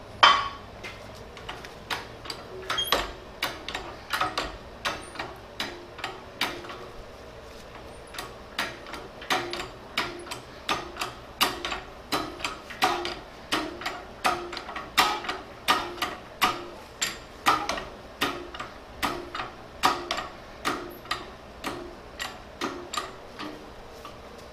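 Hand pump of a Dake hydraulic shop press being worked stroke after stroke, a sharp metallic click on each stroke, about two a second, with one pause of about two seconds a quarter of the way in. The ram is being pumped down to press bearings into the end of a hydraulic cylinder.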